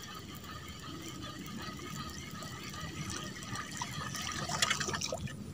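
Faint water trickling and lapping around a small boat, with a few light knocks near the end.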